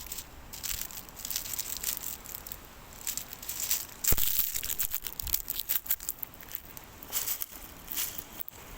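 Crunching, rustling and scraping close to the microphone as someone scrambles up a slope, with a sharp knock about four seconds in.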